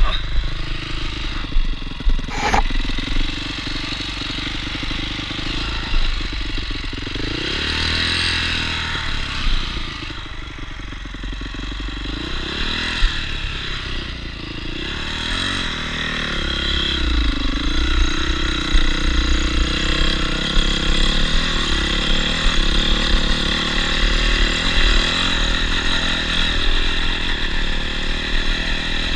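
Enduro dirt bike engine running as the bike is ridden, its pitch rising and falling several times with the throttle. There is a sharp knock about two and a half seconds in.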